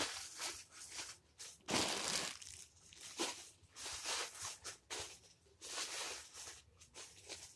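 Slime being squeezed and worked in the hands, making irregular noisy squishing bursts, the loudest about two seconds in.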